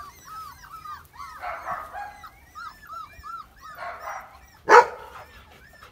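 A litter of young puppies whining and yipping, many short high cries rising and falling in pitch, several a second and overlapping. One louder, sharp bark comes near the end.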